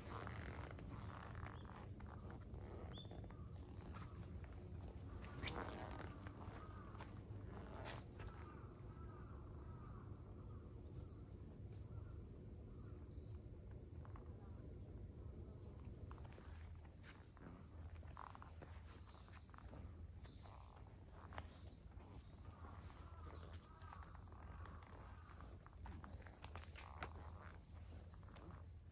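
A steady, high-pitched insect chorus, one unbroken trill, with a few faint clicks now and then.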